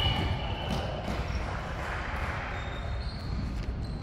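Echoing gym-hall room noise between volleyball rallies: low rumble with faint thuds of a ball and feet on the wooden court floor. A thin high tone fades out about a second in.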